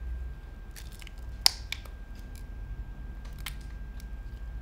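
Samsung Galaxy Z Flip 5's hinge being folded open and shut after a dust test: scattered gritty clicks and small crunches from dirt in the hinge, the sharpest about a second and a half in, over a low steady hum.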